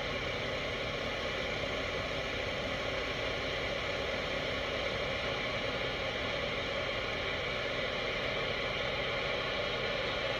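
Steady road and engine noise heard inside a vehicle's cabin, an even hiss with no distinct events.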